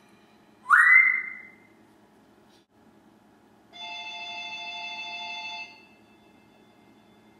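African grey parrot gives a loud rising whistle that levels off and holds for about a second. A couple of seconds later a quieter, steady tone made of several pitches together sounds for about two seconds, then cuts off.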